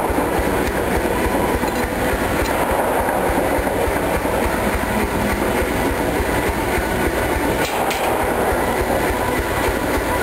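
Mechanical power hammer running continuously, with a fast, even clatter of blows.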